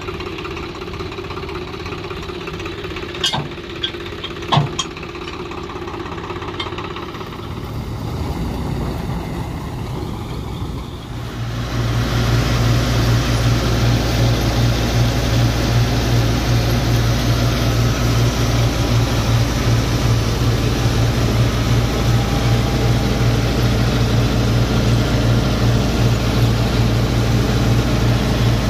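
John Deere tractor engine running steadily under load, driving a Punni B2B paddy thresher as it threshes. About eleven seconds in the sound becomes much louder, a deep steady hum from the running machinery. Two sharp knocks come in the first few seconds.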